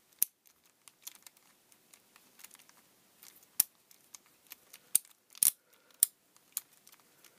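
Plastic ratchet of a cheap DIY screwdriver clicking irregularly as a screw is worked out of a metal pump body, with a few sharper, louder clicks. The ratchet is under strain: the screwdriver is 'not happy'.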